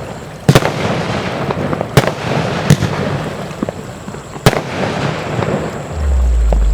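Kristallblitz compound firework cake firing: sharp bangs of bursting shells every second or two, with continuous crackling in between. About six seconds in, a deep low hum starts and takes over.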